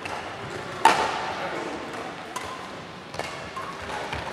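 Badminton rackets striking a shuttlecock during a rally, sharp pings that echo in a large hall. The loudest hit comes about a second in, with further hits a little past halfway and after.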